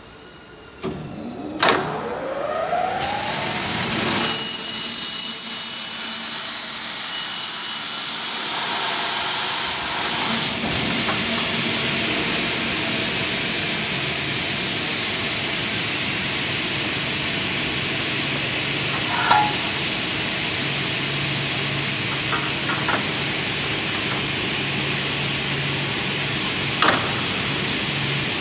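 Double-head aluminium profile mitre saw: the blade motors spin up with a rising whine about a second in, then the saw blades cut through an aluminium profile with a loud, high-pitched whistling screech for several seconds. After that the blades run on steadily, with a few short clicks.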